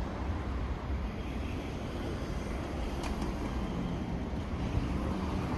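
A steady low rumble, with a faint click about three seconds in.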